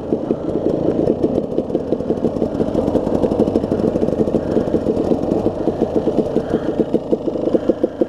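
KTM two-stroke enduro dirt bike engines idling and running at low revs, with a rapid, slightly uneven pulse.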